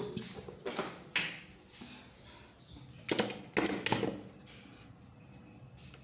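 Spatula scraping against a nonstick pan while stirring sugar into semolina sheera: irregular scraping strokes, the loudest a few around three to four seconds in, then quieter.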